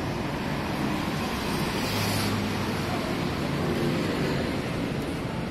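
Steady city road traffic, with one vehicle passing close about two seconds in.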